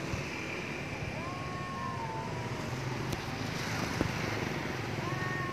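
Stray cats yowling at each other: long, wavering calls that rise and then sag, one about a second in and another near the end. This is the caterwauling of cats in mating season. A steady hum of distant traffic lies underneath.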